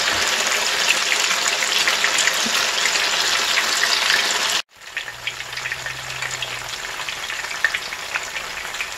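Funnel-cake batter deep-frying in hot oil at about 350°F, a steady dense sizzle full of small crackles. It cuts off abruptly a little over four seconds in, then carries on quieter.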